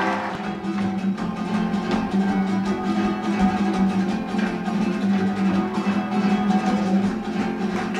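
Acoustic guitar being strummed in a steady rhythm.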